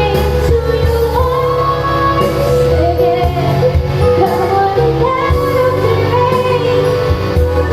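Pop song with a woman singing over a steady bass accompaniment.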